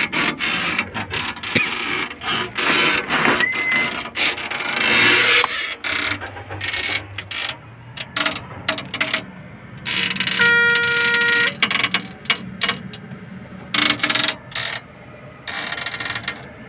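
Irregular metallic clicking and clattering around a Caterpillar D6R bulldozer's access panels, with one short beep-like tone about ten seconds in.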